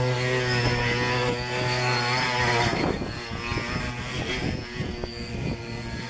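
Wooden ox cart axle 'singing' as the cart rolls, the axle rubbing in its wooden bearings: a steady droning whine with many overtones. It breaks off about three seconds in, followed by shorter, uneven squeaks and knocks.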